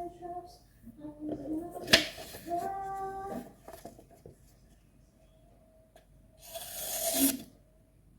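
A voice humming a few short held notes, with a sharp click about two seconds in; near the end comes one short scraping stroke of a steel kitchen knife drawn across a wet whetstone.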